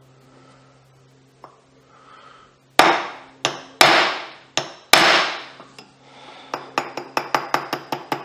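Small hammer tapping a link pin into a 1911-pattern pistol barrel's link: quiet for the first few seconds, then about six sharp, ringing metal-on-metal strikes, followed by a quicker run of lighter taps. The pin is starting in crooked.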